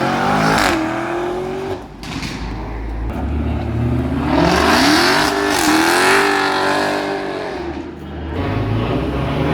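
Car engine revving hard: the pitch climbs sharply at the start, then climbs again for a longer rev that holds high and drops back near the end.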